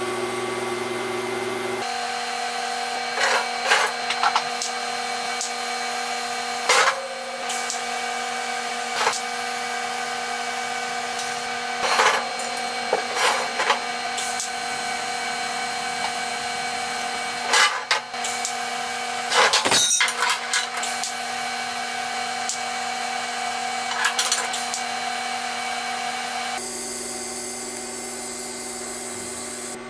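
Shop machinery running with a steady whine, broken by scattered sharp knocks and clicks. The sound changes abruptly about two seconds in and again near the end.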